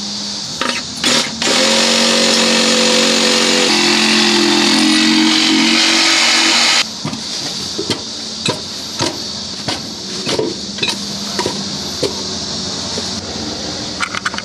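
A handheld electric power tool runs for about five seconds, cutting away insulation around the flue hole in the concrete slab. Its motor pitch drops partway through as it bites under load. It cuts off suddenly and is followed by scattered knocks and scraping as the material is worked loose.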